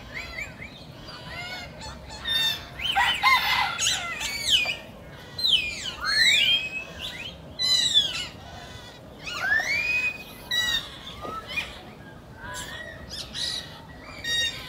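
A group of monkeys giving many short, high-pitched squealing calls that rise and fall in pitch, in irregular bouts, loudest a few seconds in.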